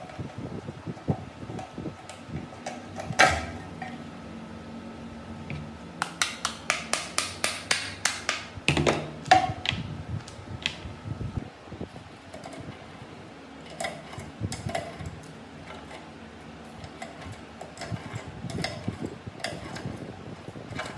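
Plastic and metal handling noises as the plastic handle and switch housing is fitted onto an old metal cut-off saw's motor: scattered clicks and knocks, the loudest about three seconds in, and a quick run of clicks, about four a second, from about six to nine seconds in. A steady low hum runs underneath.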